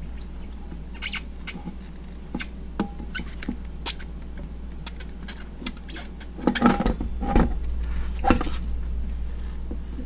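Light clicks, taps and scrapes as the rear wheel of a 2015 Ducati Hyperstrada is handled and slid onto its single-sided swingarm hub, lining the hub's splines up with the holes in the wheel. A cluster of louder knocks comes from about six and a half to eight and a half seconds in as the wheel seats on the hub. A steady low hum runs underneath.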